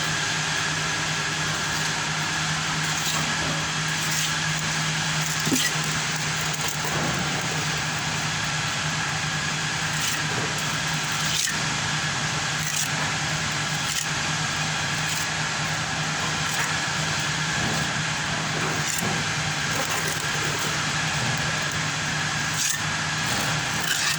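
A machine running steadily with a constant low hum and a hiss, with a few light knocks now and then.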